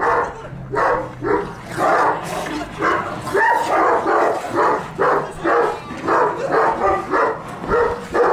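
Large Kurdish shepherd dog barking repeatedly, in a steady run of about two barks a second.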